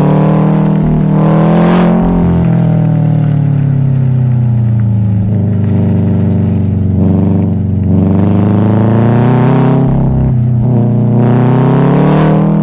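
Subaru WRX STI's turbocharged flat-four boxer engine rumbling under way: revs climb, break at a gear change about two seconds in, fall away slowly, then build again near the end.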